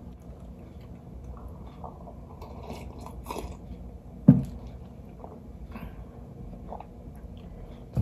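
Close-miked mouth sounds of drinking otai, a Tongan fruit drink: small sips and lip clicks, one loud gulp about four seconds in, then soft chewing of the fruit pieces.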